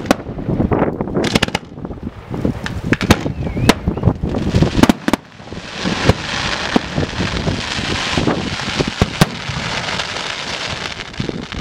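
Fireworks display: a quick series of sharp launch thumps and shell bangs, then, about halfway in, a dense steady crackling as glittering stars burn out in the sky.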